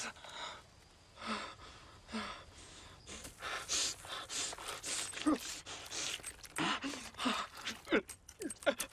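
A badly wounded person gasping for breath in ragged, irregular gasps, with short strained groans broken in among them.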